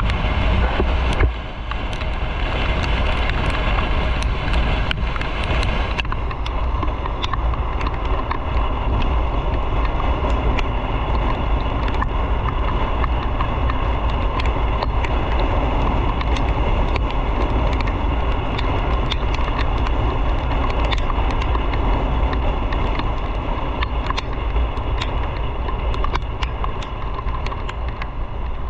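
Onboard sound of a motorcycle being ridden on the road: engine running steadily under a heavy rush of wind noise on the microphone.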